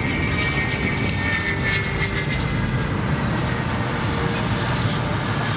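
MiG-31's twin D-30F6 turbofan jet engines running at low thrust during the landing roll: a steady rumble with a high whine that slowly falls in pitch as the engines wind down.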